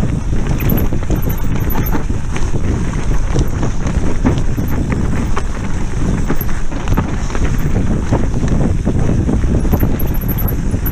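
Mountain bike descending a rough, icy woodland trail, heard from a GoPro that rattles in its mount over the bumps. Wind buffets the microphone over a dense run of small knocks from the bike and camera.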